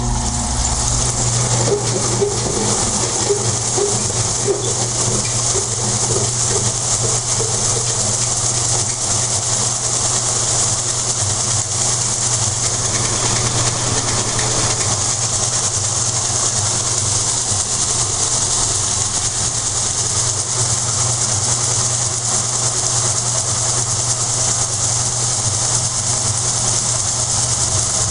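Electrolux TOP8 top-loading washing machine in its spin cycle: a steady motor hum and rushing of the spinning drum, with a repeated creak, clearest in the first several seconds. The creak comes when the drum shakes hard, and the owner suspects the suspension, springs or bearing ring.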